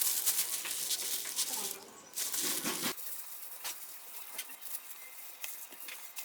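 Kitchen handling sounds: a rustling hiss full of small clicks for about three seconds, then scattered light clicks and taps after the background changes abruptly.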